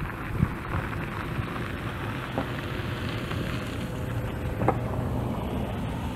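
Wind buffeting the microphone outdoors: an uneven low rumble over a steady hiss, with a few faint ticks.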